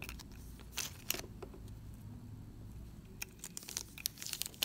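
Small clicks and rustles of a pair of sunglasses being handled while a thin clear plastic protective sleeve is slid off a temple arm. The clicks come thicker in the last second and a half.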